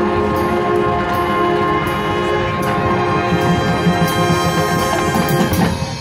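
High school marching band playing, with brass holding loud sustained chords over drum strokes. The music breaks off sharply near the end.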